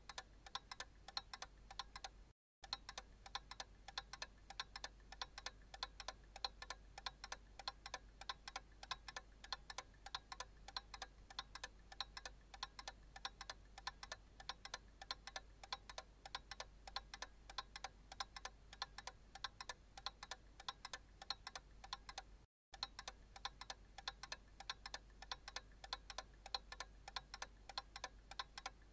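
Analog clock ticking in a fast, even rhythm of light, tinny clicks. The ticking cuts out for an instant twice.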